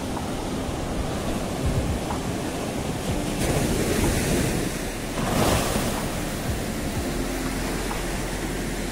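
Ocean surf breaking on a sandy beach, with wind buffeting the microphone; two waves break louder about halfway through, a second or so apart.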